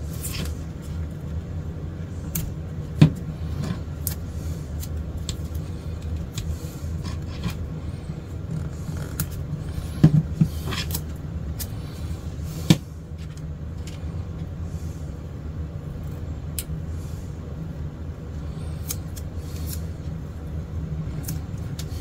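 Handling noise from masking tape being torn and pressed onto a guitar neck to clamp freshly glued binding: scattered small clicks and rustles, with sharper knocks about three, ten and thirteen seconds in, over a steady low hum.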